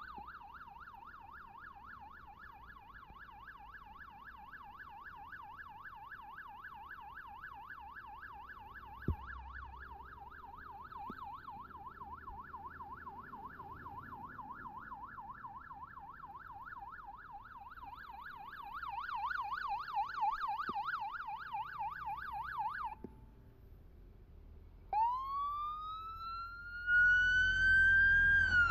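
Electronic emergency siren in a fast yelp, its pitch warbling rapidly up and down several times a second, cutting off abruptly about 23 seconds in. After a short pause it switches to a slow wail that climbs steadily and begins to fall right at the end, louder than the yelp.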